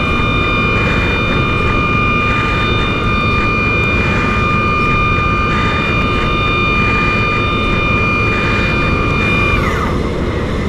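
DN Solutions DVF5000 5-axis CNC machining center reaming holes in 4140 alloy steel with a Kennametal KenReam reamer: a steady high spindle whine over the hiss of coolant spray, with a repeating pulse as the tool works hole after hole. Near the end the whine falls in pitch as the spindle slows.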